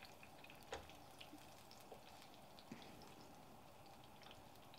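Turbot frying in hot oil in a frying pan: a faint, steady sizzle and crackle with a few small pops.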